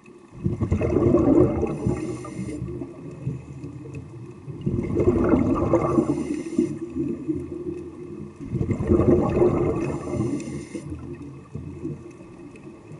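Scuba breathing through a regulator underwater: three loud bursts of exhaled bubbles, about four seconds apart, with quieter stretches between breaths.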